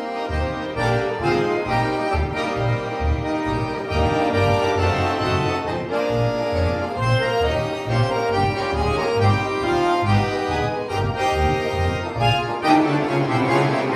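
Accordion quintet playing: held chords over a short, detached bass line in a quick rhythm. Near the end the bass turns into a steady held note and the chords grow fuller.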